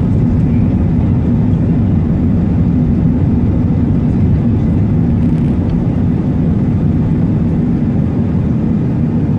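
Airbus A380 jet noise: a steady low roar that holds level without rising or falling.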